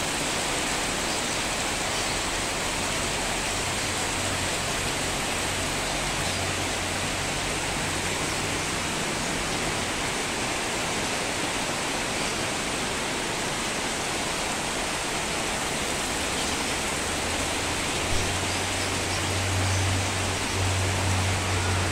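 Heavy tropical downpour: a steady roar of rain pouring onto clay tile roofs and trees.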